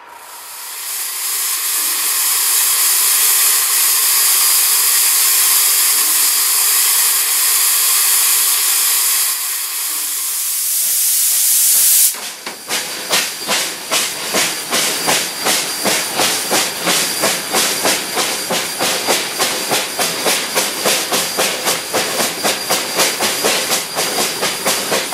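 Climax geared steam locomotive: a loud, steady hiss of steam for about twelve seconds, then, heard from the engine as it runs, rapid, even exhaust chuffs, several a second, over continuing steam hiss.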